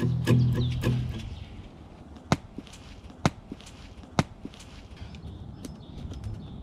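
Strummed guitar music fading out in the first second, then digging by hand in loose forest soil: soft scraping with three sharp clicks about a second apart and a few fainter ticks.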